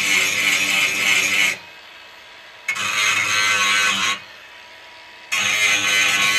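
Milwaukee cordless angle grinder grinding down fresh welds on a steel patch panel, running in three spells of a second or two with short pauses between: weld cleanup on rusted sheet metal.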